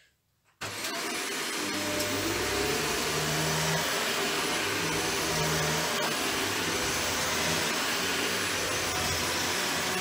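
Shark NZ801UKT Anti Hair Wrap corded upright vacuum cleaner switching on abruptly about half a second in, then running steadily as it is pushed over a rug.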